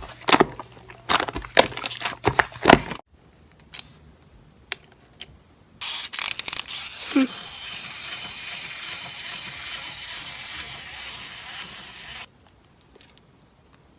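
Slime being handled: a quick run of sharp pops and clicks, a few faint clicks, then about six seconds of loud hissing crackle that cuts off suddenly.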